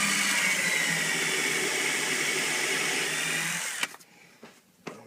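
Electric drill running steadily with a motor whine, boring a pilot hole into particle board, then stopping abruptly nearly four seconds in, followed by a click and a few light knocks.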